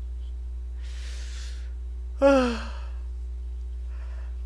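A man draws a breath in, then lets out a short, loud sigh that falls in pitch, followed by a softer breath near the end.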